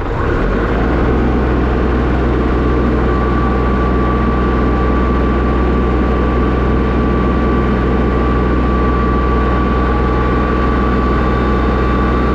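Kubota L3301 tractor's three-cylinder diesel engine running steadily, with a thin steady whine joining about three seconds in.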